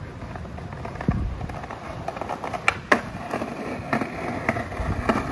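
Skateboard rolling on a concrete path: a steady low rumble from the wheels, with several sharp clacks as they cross the joints in the pavement.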